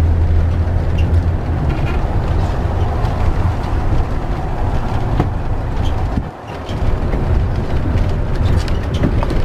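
Engine and road noise inside a moving converted-bus motorhome: a strong low hum with steady rumble above it, dipping briefly about six seconds in.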